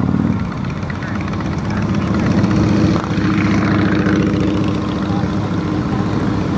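A group of motorcycles, mostly big V-twin cruisers and touring bikes, riding past slowly in a procession, their engines running at low speed in a steady drone.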